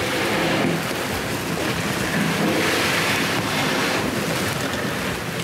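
Steady rushing outdoor noise, with no distinct events.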